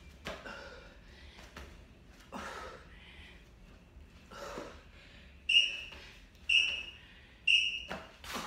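Heavy breathing during a plank exercise, then an interval timer's countdown: three short high beeps a second apart, marking the end of a Tabata work interval, with a sharp click just after.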